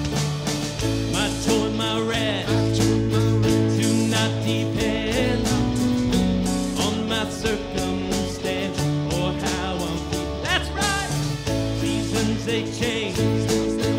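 Live worship band playing: a man sings the lead over acoustic guitar, electric guitar, bass and a drum kit keeping a steady beat.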